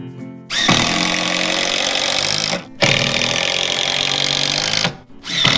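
Cordless drill/driver driving screws into wooden deck boards in three runs, each starting with a short rising motor whine. The first two runs last about two seconds each, and the third begins just before the end.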